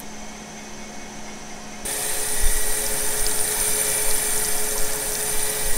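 Crankshaft grinder running with a low hum, then about two seconds in a louder, steady grinding sets in as the wheel grinds down the head diameter of a stainless performance engine valve.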